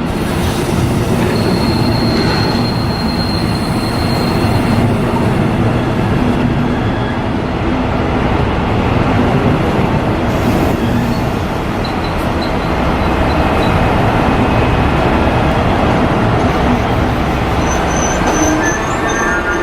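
Train running on rails with a steady loud rumble, and a high wheel squeal for a few seconds near the start.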